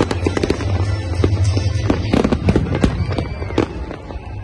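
Fireworks display: aerial shells bursting in rapid, dense succession, many sharp bangs and crackles, thinning out near the end, with music playing underneath.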